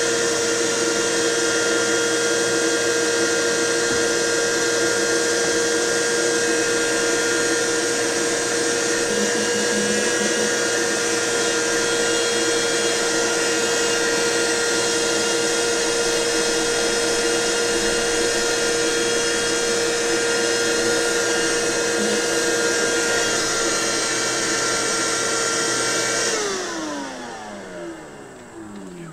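Small motor running steadily at high speed with a constant whine, then switched off near the end and spinning down with a falling pitch.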